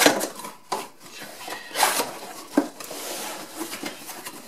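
Cardboard laptop box being handled and its flaps pulled open: cardboard scraping and rustling, with a few sharp knocks as the box is moved about, the loudest near the start and about two seconds in.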